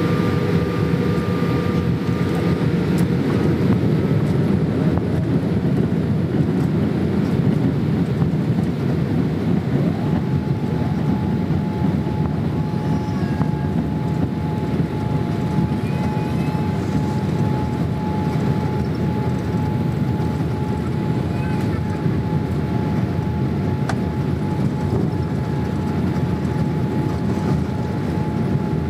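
Cabin noise of a Boeing 787-8 Dreamliner on the ground, heard from an economy seat behind the wing: a steady engine and airframe rumble from its Rolls-Royce Trent 1000 engines. About ten seconds in a faint whine rises briefly and then holds.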